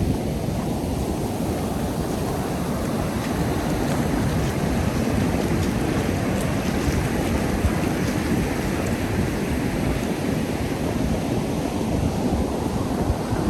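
Ocean surf washing onto a sandy beach, a steady rushing noise that swells slightly mid-way, with wind buffeting the microphone.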